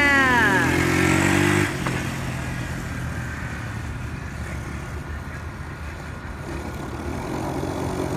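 Apollo VRX 125cc ATV's single-cylinder four-stroke engine, its pitch falling as the revs drop during the first second or so. It cuts off suddenly a little under two seconds in, and the engine is then heard quieter and farther off, mixed with a steady noisy hiss.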